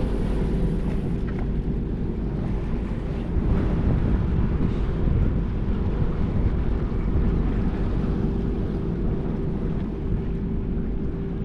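Wind buffeting the microphone, a steady low rumble, with a constant droning hum underneath.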